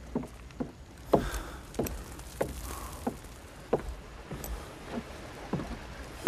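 Slow, irregular soft thuds and knocks on wooden boards, about one every half second to a second, like steps on a wooden platform.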